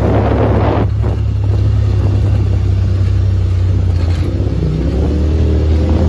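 Off-road vehicle engine running steadily while driving over a dirt track, with wind and tyre noise. A louder rushing noise dies down about a second in.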